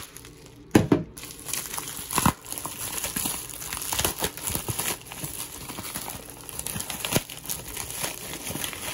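Clear plastic bags of LEGO pieces crinkling as they are handled, with louder knocks about a second in and again a little over a second later.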